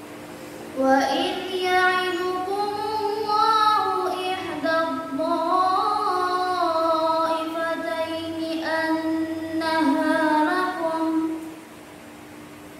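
A girl's voice reciting the Qur'an in melodic tilawah style: one long sung phrase with winding, ornamented turns of pitch. It starts about a second in and ends near the end, with a pause for breath on either side.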